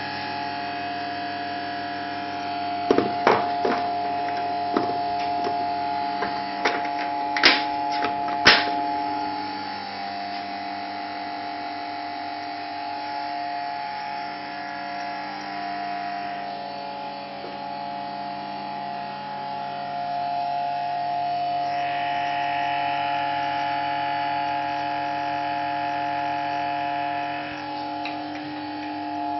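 Festool VAC-SYS vacuum pump running with a steady electric hum, about 52–53 decibels at one metre. A few sharp knocks come between about three and nine seconds in.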